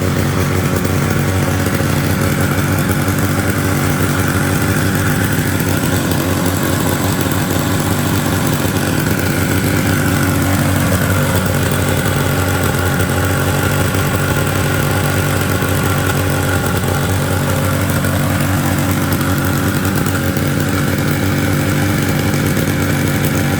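1947 Mercury Disston KB7-AY two-man chainsaw's two-stroke engine running steadily, its pitch dipping and coming back up twice: the restored saw running again.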